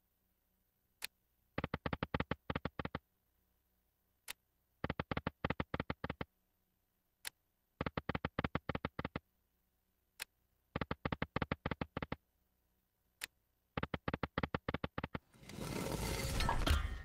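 Clover Link Emperors of the Nile slot game sounds: a short click starts each spin and a quick run of ticks follows as the reels stop, repeating about every three seconds. Near the end comes a louder burst of game music.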